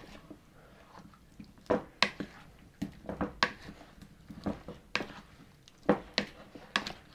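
A wooden spoon tossing chunks of boiled potato in dressing in a mixing bowl: about a dozen irregular knocks and scrapes of the spoon against the bowl, with wet squishing of the potatoes.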